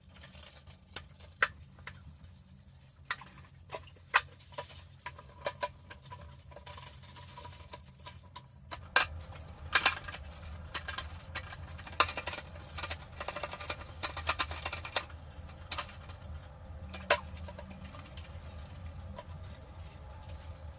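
A toilet being wiped down by hand with a cloth: rubbing and scattered light knocks and clicks against the porcelain, busiest in the middle, over a steady low hum.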